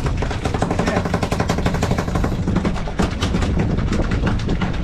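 A fishing boat's engine running under a fast, rattling run of knocks and clicks on the deck, many to the second.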